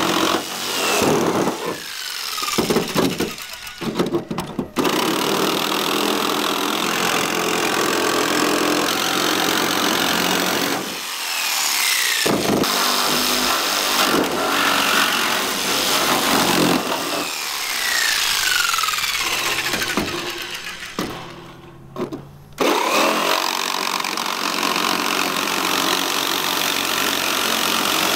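Corded Skil 6.0-amp jigsaw cutting through the school bus's sheet-metal roof, its blade rasping steadily, stopping and restarting briefly three times as it works along the cut.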